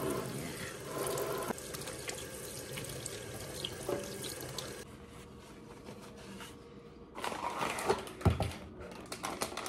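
Kitchen tap running into a stainless steel sink while hands are rubbed under the stream. The water stops about five seconds in, and near the end come a few knocks and one low thump.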